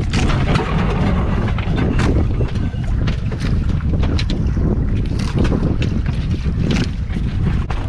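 Wind buffeting the microphone over open sea, with water sloshing and slapping against the hull of a small wooden outrigger boat and scattered short knocks.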